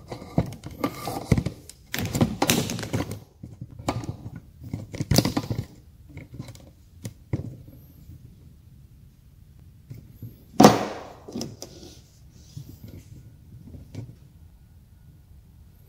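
Knocks, clunks and rubbing from the camera being handled, moved and set down, followed by scattered light taps and one loud sharp knock about ten and a half seconds in.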